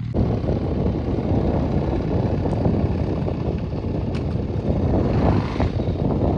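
Dirt bike being ridden, a low engine rumble mixed with heavy wind buffeting on the microphone.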